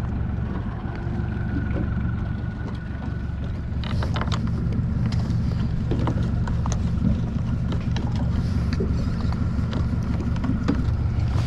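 A steady low rumble with a faint steady whine above it. From about four seconds in come scattered clicks and knocks of a plastic clamp-on rod holder being handled and adjusted on a small boat's gunwale.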